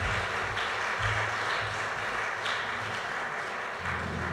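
Audience applauding, a steady spread of clapping that begins to die away near the end.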